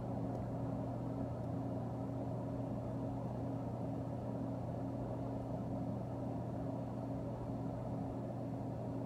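Aquarium filter pump humming steadily, a low electrical hum that holds an even level throughout.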